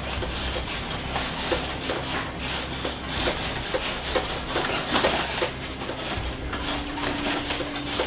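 The inside of a stopped bus rattling and clattering continuously, its fittings and windows knocking as the bus is shaken by an earthquake, over a low engine hum. A steady tone comes in near the end.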